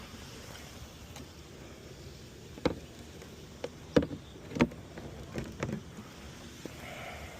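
A handful of sharp knocks and clicks over a few seconds, the loudest two close together in the middle, over a faint steady outdoor background.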